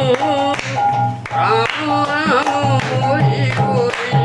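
Devotional group singing (kirtan): voices sing a wavering melody over a steady held drone, with sharp percussion strikes throughout.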